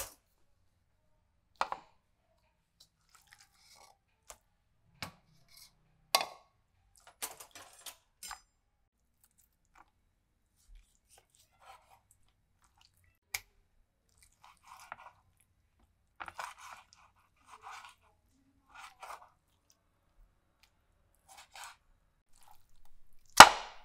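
Knife slicing raw boneless chicken thigh on a wooden cutting board: scattered soft cuts and light taps of the blade on the wood, with one louder knock near the end.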